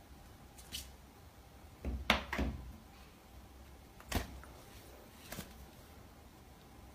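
A few short, quiet taps and rustles as a cat standing on its hind legs paws at a person's hand and is patted on the head: the loudest cluster comes about two seconds in, and a sharp tap about four seconds in.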